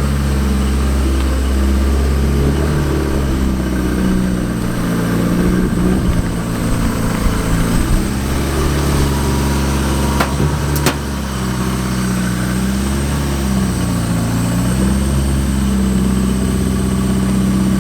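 Mazda Miata's four-cylinder engine running steadily, its pitch rising and dipping a little. Two brief sharp clicks come about ten and eleven seconds in.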